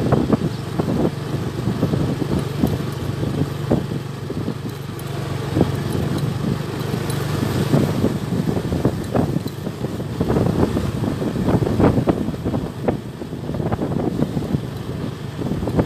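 A moving vehicle's engine running with a steady hum, with irregular wind buffeting on the microphone.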